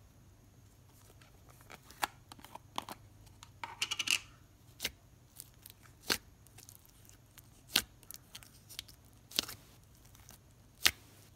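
Glossy, creamy slime in a jar being poked and pressed with fingers, making sharp clicking pops. They start about two seconds in, crackle in a quick run around four seconds, then come as single loud pops roughly every second and a half.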